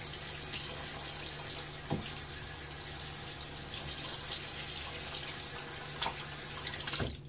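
Bathroom sink tap running while water is splashed up to rinse the face between shaving passes, with a few louder splashes. The flow stops suddenly near the end as the tap is shut off.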